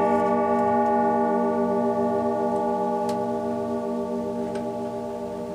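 Chime rods of a Howard Miller Concerto grandfather clock movement ringing on after a hammer strike, many steady tones slowly dying away, with two faint clicks about three and four and a half seconds in.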